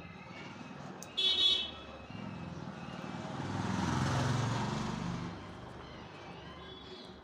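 A road vehicle passing by, its noise swelling to a peak and fading away. A short, high-pitched toot comes about a second in.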